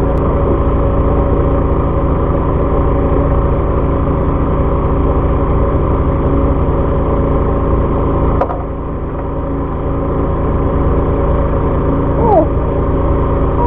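Steady drone of a fishing boat's engine: a low rumble with several steady hum tones. It dips briefly about eight seconds in. Short falling whines come near the end.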